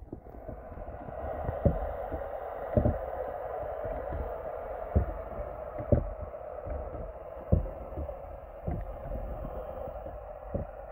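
Muffled underwater sound of lake water picked up by a submerged camera: a steady dull hiss with soft low thumps every second or two.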